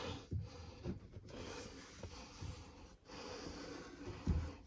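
Garbage disposal being lifted and twisted onto its sink mounting ring: faint scraping and rubbing of the unit against the mount, with a person breathing hard, and a single knock near the end.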